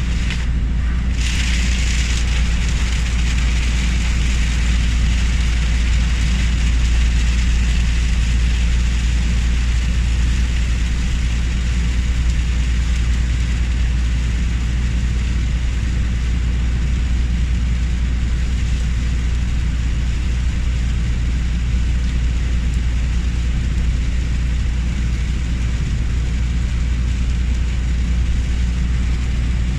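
Heavy rain hissing steadily over the low rumble of a car driving on a motorway. About a second in, the hiss briefly thins out and comes back stronger.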